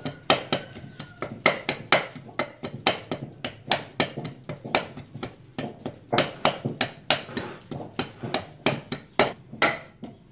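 Wooden pestle pounding in a clay mortar: a steady run of dull strikes, about two to three a second.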